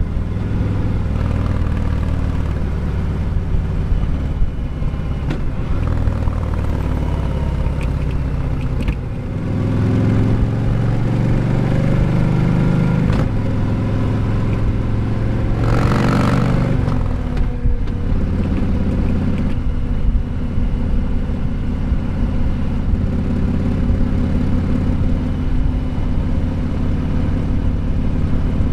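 Harley-Davidson Sport Glide's Milwaukee-Eight 107 V-twin engine running under way, its note rising and falling with the throttle. About nine seconds in it briefly drops off, then pulls harder. About sixteen seconds in there is a brief whoosh.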